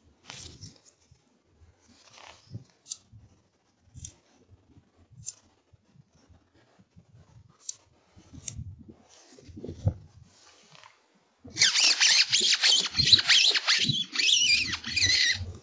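A fox call squeaking loudly in a fast run of high, wavering squeals for about four seconds near the end, used to call a fox in. Before it, only faint scattered clicks and handling noises.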